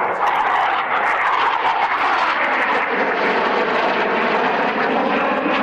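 SEPECAT Jaguar jet, with its twin Adour turbofans, flying past with a loud, steady roar whose pitch falls slowly.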